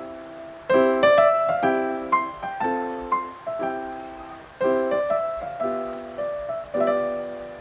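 Background piano music: chords and a melody of struck notes, each fading after it is played.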